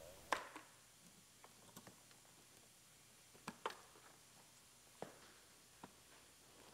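Faint, scattered plastic clicks and taps as a car seat cover's elastic straps are unclipped from the seat frame. About half a dozen separate clicks, the sharpest just after the start and a close pair past the middle.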